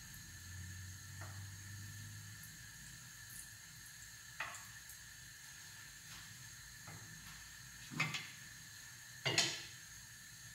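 Potato pancakes sizzling faintly in oil in a frying pan, with a few sharp clattering knocks of kitchen utensils; the loudest two come near the end.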